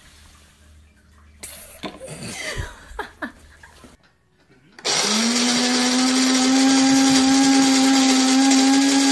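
A small electric motor, like a kitchen appliance's, starts about five seconds in: its whine rises quickly, then runs loud and steady with a wide hiss. Before it there are only faint, scattered sounds.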